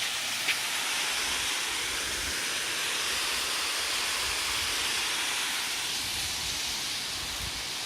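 Small waterfall on a river running low, a steady rush of falling water, described as trickly.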